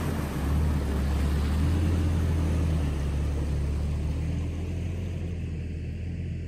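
Toyota Tacoma pickup's engine running steadily as the truck drives through a muddy water crossing, with water splashing from the tyres. The engine hum and splashing fade gradually in the second half as the truck moves away.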